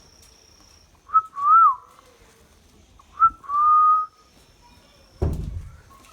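Indian ringneck parrot whistling twice: each time a quick chirp followed by a clear held note, the first one bending up and down. A low thump follows near the end.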